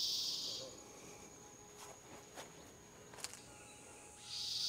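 Insects buzzing as a high, steady hiss. It fades away about a second in and swells back near the end, with a few faint ticks in the quiet stretch between.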